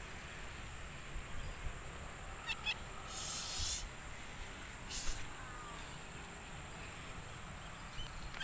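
Wind rumbling on the microphone, with a few short high bird chirps about two and a half seconds in, a harsher high call just after, and a brief sharp noise about five seconds in.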